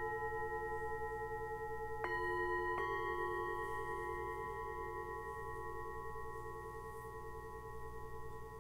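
Himalayan singing bowls struck with a wooden mallet, twice about two and three seconds in, their layered tones ringing on and slowly fading. The lowest tone pulses throughout.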